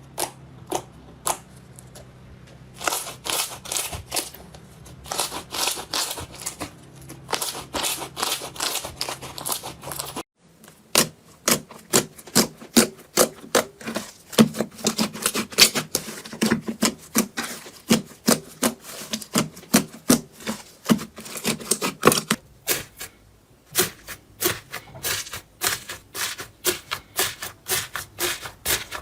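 Slime pressed and squeezed by hand, giving off rapid, irregular sharp clicks and crackling pops. A cut to another clip about ten seconds in drops a low background hum, and the clicking goes on.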